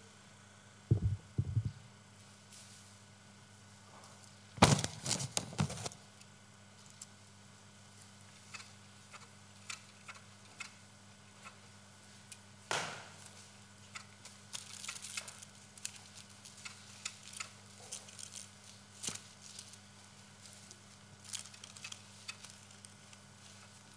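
Handling noise from stage equipment: two dull thumps about a second in, a loud burst of knocks and clatter about five seconds in, then scattered small clicks and taps.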